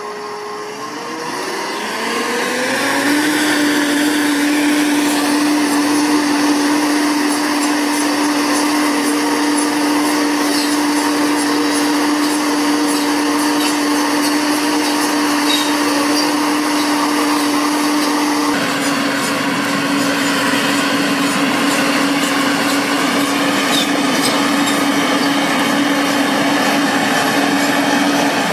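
Self-propelled tobacco harvester running: its engine speeds up and grows louder about two seconds in, then holds a steady whining pitch, with light rattling from the cutting and conveying machinery.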